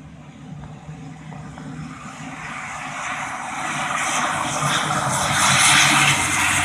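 Wings Air ATR 72 twin turboprop rolling fast along the runway. It comes closer throughout, so a steady low propeller drone with a rushing engine noise over it grows steadily louder.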